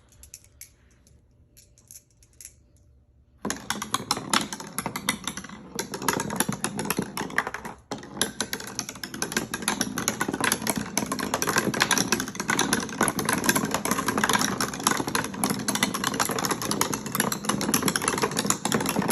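Marbles rolling and rattling down a homemade cardboard and popsicle-stick marble run, a dense stream of rapid clicks and clatter that starts after a few quiet seconds and keeps going, with a brief pause a few seconds later.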